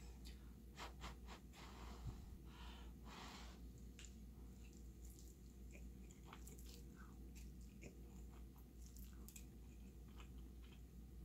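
Faint chewing of thick instant ramen noodles: soft wet mouth sounds in the first few seconds, then scattered small clicks, over a faint low hum.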